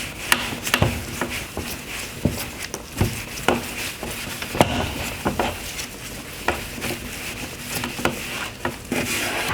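Wiping the wet liquid off a plastic headlight lens after wet sanding: irregular rubbing and handling noise, with scattered light knocks and clicks.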